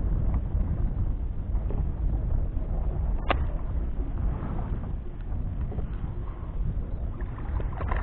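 Wind buffeting the microphone over water lapping around a kayak, with one sharp click about three seconds in. Right at the end a hooked fish starts splashing at the surface.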